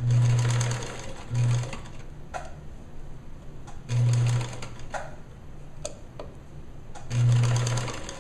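Kenmore sewing machine stitching in four short bursts, each under a second, with brief pauses between them holding a few light clicks. The stop-and-start running is a top-stitch being sewn slowly along a curved neckline.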